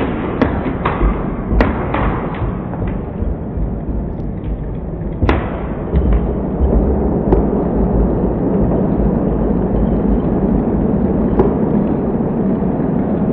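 Glass marbles rolling and clattering around a plastic tabletop soccer pitch, with a steady rumble and scattered sharp clicks as they hit each other and the walls; one louder knock comes about five seconds in.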